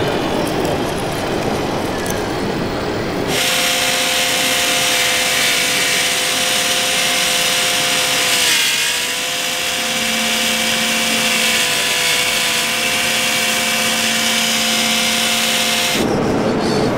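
A rough, noisy running sound for about three seconds, then a steady high whine from the electric drive of an RC model John Deere 6850 forage harvester picking up hay, with a hiss over it. The whine dips briefly in pitch about halfway through.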